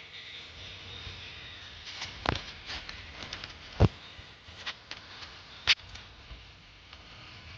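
A few scattered sharp knocks and clicks, the loudest three about two, four and six seconds in, over a faint steady hiss.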